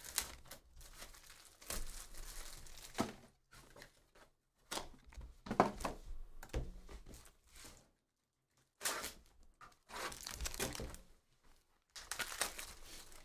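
Plastic shrink-wrap being torn and crinkled off a trading-card hobby box, with cardboard handled, in a string of short rustling bursts and a pause of almost two seconds a little past halfway.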